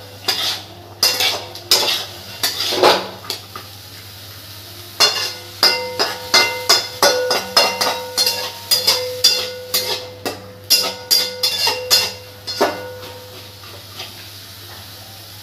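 A metal spatula scrapes and knocks against a metal kadhai while stirring chickpeas and fried onions, and each stroke leaves the pan ringing briefly. A quick run of strokes comes at first, then a short lull of about two seconds, then a long, dense run of knocks. It thins out near the end.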